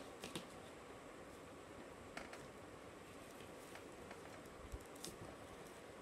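Faint handling noise: a few light clicks and rustles as small parts, a 9-volt battery, a plastic clip and wires, are handled on a tabletop, over quiet room tone.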